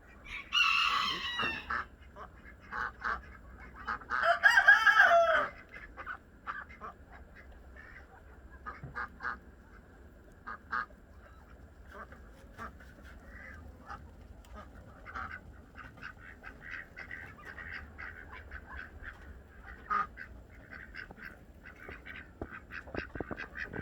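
Farm poultry calling: two loud calls, one near the start and one about four seconds in, followed by scattered fainter calls and clucking.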